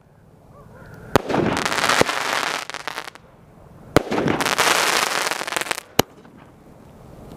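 12-shot aerial firework cake firing its shells: three sharp bangs about two seconds apart. Each of the first two is followed by a second or two of dense crackling as the shell's sparks burst.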